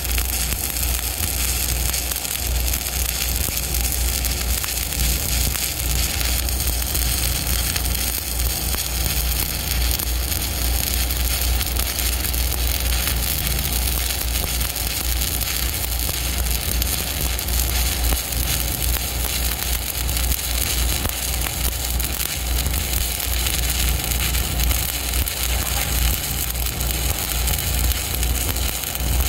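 Stick-welding arc from a 1/8-inch 7018 electrode (Lincoln Excalibur) at about 126 amps, laying a bead on steel angle clips: a steady, dense crackling hiss with no break.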